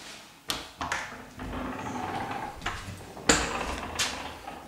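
A few sharp knocks and clicks with rustling between them; the loudest knock comes a little over three seconds in.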